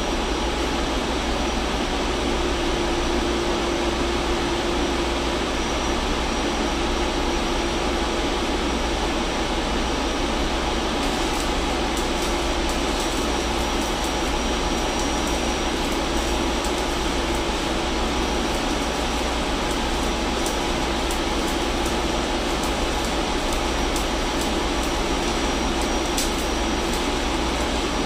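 Steady machinery noise of a ship's engine room, with sharp crackles from the arc welder beginning about eleven seconds in.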